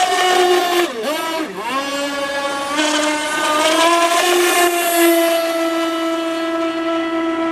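Tuned 27cc two-stroke reed-valve petrol engine of a racing RC boat, running through a silenced tuned pipe at high revs. About a second in its pitch drops sharply twice, then climbs back and holds a steady high note.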